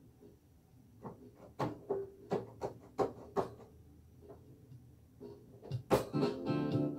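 Scattered clicks and light knocks from someone working at a computer desk, about a dozen in all. About six seconds in, after a sharper click, music starts playing.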